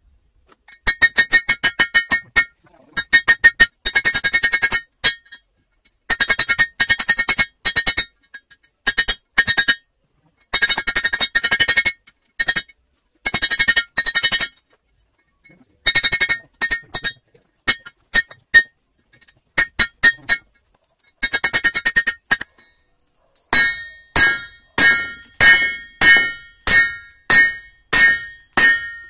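Hammer blows on red-hot leaf-spring steel over an improvised steel-block anvil, each strike ringing at the same pitch. Quick runs of rapid blows are broken by silent gaps. Near the end come slower single blows, about two a second, each ringing out.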